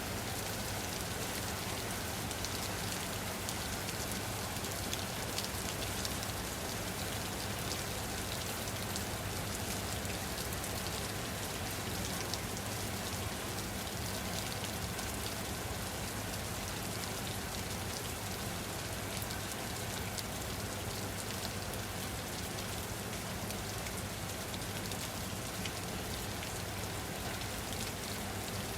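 Steady rain falling on a surface, a constant hiss with many fine drop ticks and no let-up, over a low steady hum.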